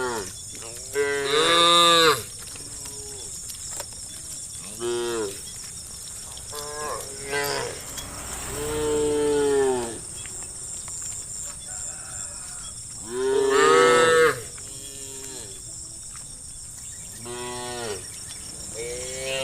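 Cattle in a herd mooing, about eight calls of varied pitch and length, the loudest about a second in and again past the middle, over a steady high-pitched drone.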